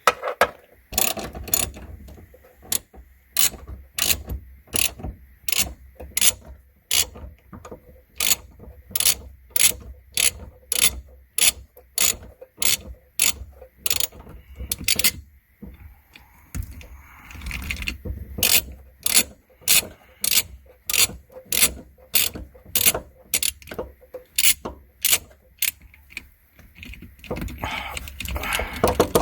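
Ratchet wrench with a triple square (XZN) bit socket backing out a long bolt. Its pawl gives a sharp click about twice a second, with a short pause about halfway through.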